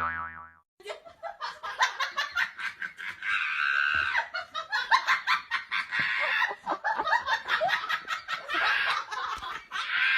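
A cartoon boing sound effect dies away in the first half-second, then people laugh almost without a break in quick, pitched bursts.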